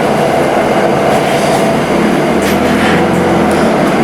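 A train running, with steady, loud noise that holds at a constant level.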